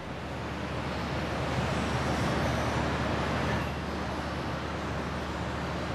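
Industrial ore-handling machinery running: an even rushing noise over a steady low hum, swelling in over the first second or two and then holding.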